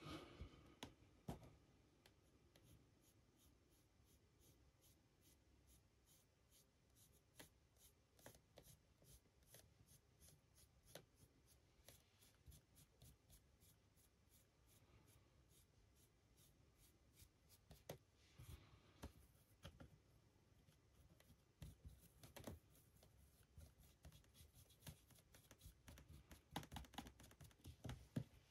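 Near silence with faint scratching and scattered light taps from a paintbrush working paint onto a 3D-printed figure and a tile palette; the taps come more often near the end.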